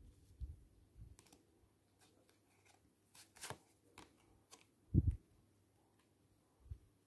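Oracle cards being shuffled and handled: a run of light clicks and card rustle, with soft thumps on the table and one louder dull thump about five seconds in.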